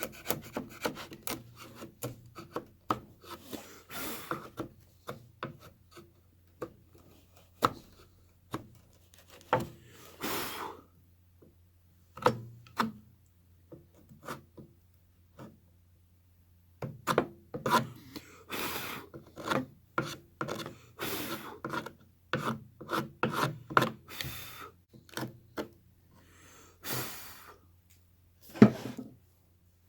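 Hand tool working wood: irregular scraping and rasping strokes, with sharp knocks and taps in between and a few short pauses.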